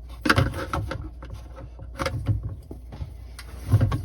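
Dishwasher parts being handled: three bursts of clattering knocks, the first soon after the start, one about two seconds in and one near the end.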